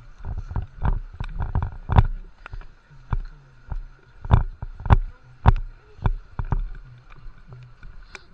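Repeated thumps and knocks on a cased action camera's microphone as it is carried or handled, about two a second with rustling in between.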